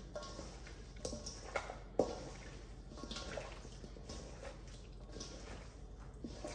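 Hands working seasoning into raw pork baby back ribs: irregular wet squishes and slaps of meat, the sharpest about two seconds in.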